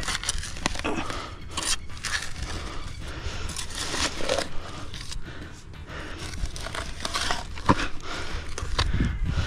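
Narrow spade's metal blade scraping and digging into soil, a run of irregular scrapes and crunches, with a sharper knock about three-quarters of the way through.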